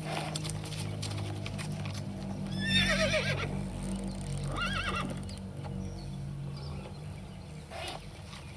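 A horse whinnies about three seconds in, a long call that falls in pitch, and gives a shorter whinny near five seconds, over the clip-clop of hooves.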